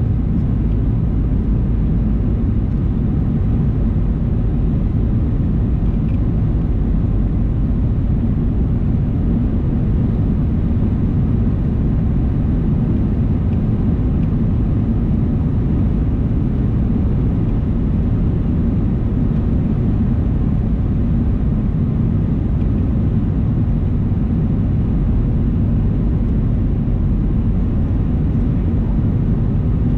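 Steady low cabin drone of a Boeing 737-800 on final approach with flaps extended: its CFM56-7B engines and the airflow past the fuselage, heard from a window seat, without change.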